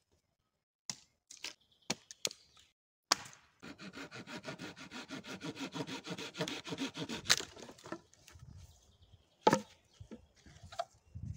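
A small hand saw cutting through a dry log with quick back-and-forth strokes, several a second, for about four seconds. A few sharp wooden knocks and cracks come before it, and one loud crack comes near the end.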